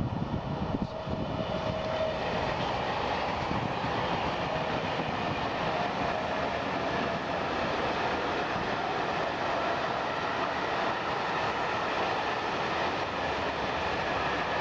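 A train running past, its noise building over the first two seconds and then holding steady, with faint steady tones through it.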